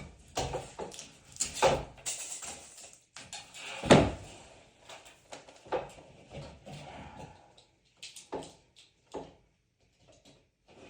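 Knocks, clatters and scrapes of boards and hand tools being handled, with a heavy knock about four seconds in; the sounds thin out toward the end.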